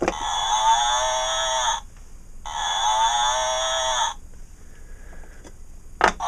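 Recorded cow mooing, played twice through the small speaker of a wooden barnyard-animal sound puzzle as its cow piece is pressed. Each moo lasts under two seconds. A sharp click comes near the end as the next piece is handled.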